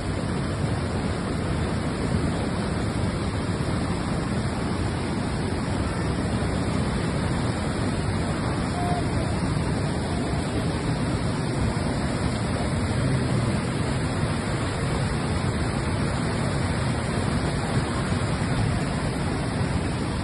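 Floodwater from an overflowing storm gully rushing across a road, a steady, unbroken rush of water.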